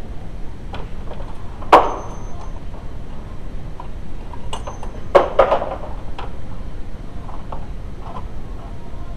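Metal tools and parts clanking: two sharp metallic knocks about three and a half seconds apart, each with a short ring, among lighter clicks and taps.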